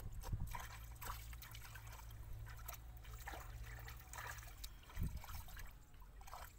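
Shallow muddy water sloshing and trickling as hands dig and scoop through mud, with scattered small splashes and a soft low thump about five seconds in.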